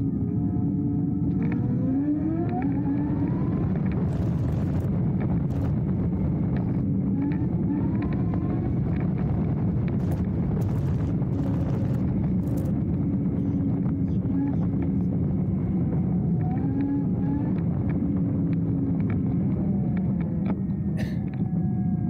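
Dualtron Thunder electric scooter riding on a gravel path: a steady rumble of wind and tyres, with the hub motors' whine rising in pitch several times as it speeds up. Scattered clicks and knocks from bumps in the path.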